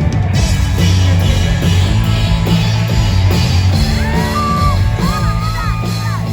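Loud rock music with drums and heavy bass. About four seconds in, a high voice comes in with held notes that slide up and down.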